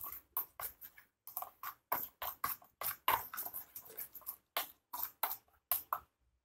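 Plastic fork stirring and scraping a thick wet spice paste against a stainless steel bowl, a quick scrape about three times a second; it stops abruptly near the end.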